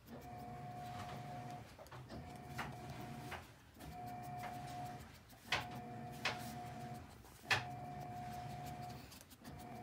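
Yorkshire terrier sniffing and snuffling hard into a pile of shepherd's purse, in repeated bouts of about a second and a half with a thin steady whistle through each. A few sharp clicks come in the second half.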